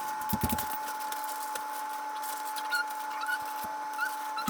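Filled plastic freezer bags being handled and stacked in a freezer: a few short knocks and plastic handling noises over a steady tone.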